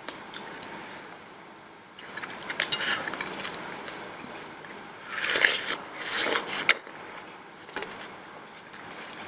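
Wet crunching and slurping of ripe watermelon being bitten and chewed, coming in bursts about two seconds in and again, loudest, around five to seven seconds in.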